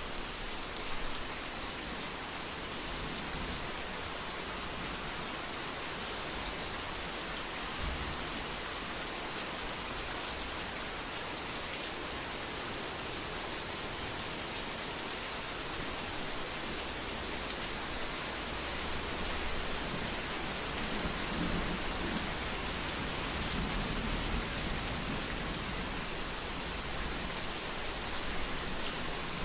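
Heavy rain falling steadily on a roof, a dense even hiss with fine ticks of individual drops. A low rumble swells in about two-thirds of the way through.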